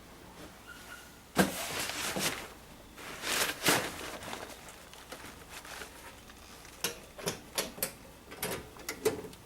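Handling noises: two short bursts of scraping and clatter, about one and three seconds in, then a quick run of sharp clicks and taps near the end.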